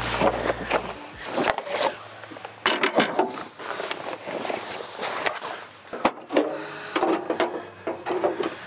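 The tail of a song cuts off about a second in, followed by a string of clicks, knocks, scrapes and rustles of things being handled and set down.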